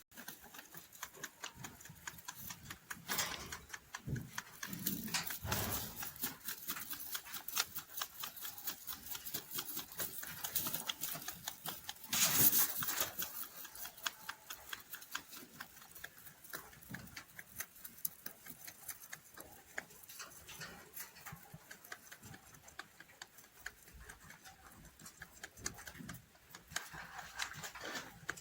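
Rabbit chewing hay: a fast, steady run of small crisp crunches, with a brief louder burst about twelve seconds in.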